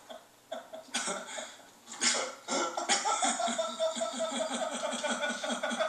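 Men laughing hard, breaking into coughing and wheezing fits. It begins about a second in and grows dense from about two seconds in.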